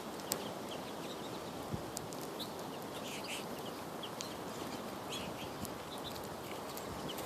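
Birds calling in short, scattered chirps over a steady outdoor hiss, with a few sharp clicks.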